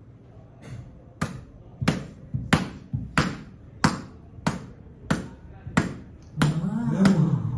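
Steady run of about ten sharp thuds, evenly spaced at roughly one and a half a second, like a ball bounced or heavy stomps made as a sound effect. About six and a half seconds in, a low, drawn-out vocal sound joins over them.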